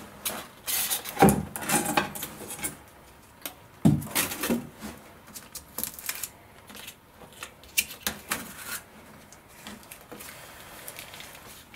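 Irregular clatter of small hard parts being handled: clinks and clicks with two louder knocks, about a second in and near four seconds, as screws go into a plastic cup and the wooden cover panels of a crate compartment are lifted out.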